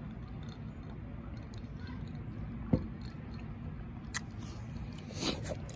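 A person chewing food quietly over a steady low background rumble, with a sharp click about two and a half seconds in and a lighter click about four seconds in.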